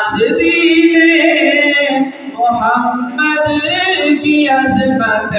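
A man singing an Urdu naat unaccompanied, drawing out long ornamented held notes, with a short breath about two seconds in before the next phrase.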